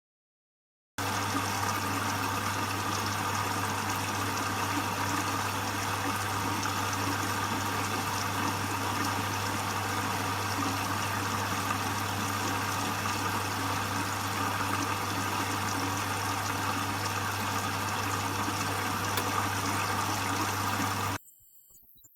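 Beko washing machine with water rushing through it over a steady electric hum, typical of its pump or water valve working. It starts abruptly about a second in and cuts off suddenly near the end.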